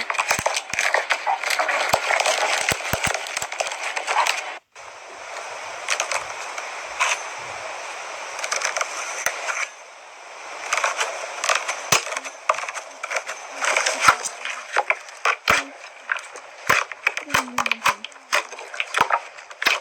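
Slime being squeezed and worked by hand: dense crackling, clicking and popping. The sound cuts out briefly about four and a half seconds in, then goes on more softly for a few seconds before the sharp pops pick up again.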